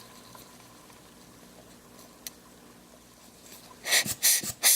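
Quiet room tone with a faint tick, then near the end a quick run of short hissing puffs of air, three or four of them, blowing grit off the cleaned plastic lens-barrel pieces.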